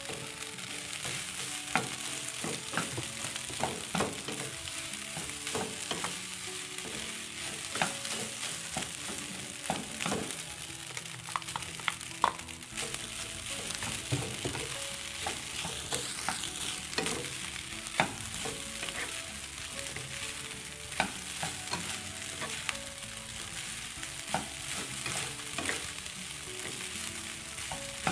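Cooked rice frying in a non-stick wok: a steady sizzle with many short scrapes and taps of a spatula against the pan as the rice is tipped in and stirred.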